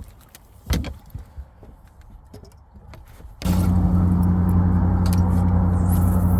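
A few knocks and small clicks, then about three and a half seconds in a boat motor starts running with a steady low hum that comes in abruptly.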